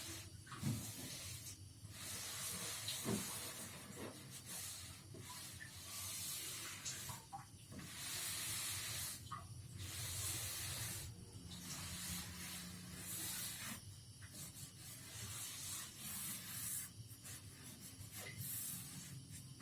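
Aerosol spray hissing in repeated bursts of one to two seconds each, with short breaks between, as a cleaner or lubricant is sprayed onto a sewing machine.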